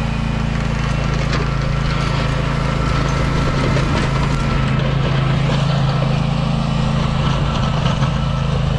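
John Deere Z530R zero-turn mower's engine running at a steady speed.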